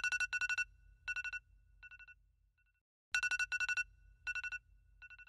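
Electronic phone ring tone going off: fast trilled bursts on a bright two-pitch tone, each round breaking up and fading away, sounding twice, the second round starting about three seconds in.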